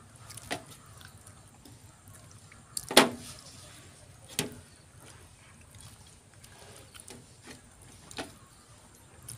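Two people eating rice and fish curry with their fingers from stainless steel plates: quiet mixing and chewing with a few sharp clicks of hands or food against the metal, the loudest about three seconds in.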